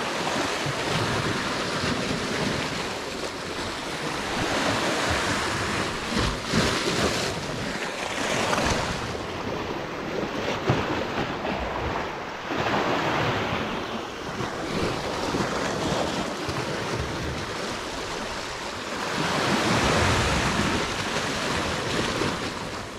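Sea waves washing against the base of a rocky shore, swelling and easing every few seconds and loudest near the end, with wind buffeting the microphone.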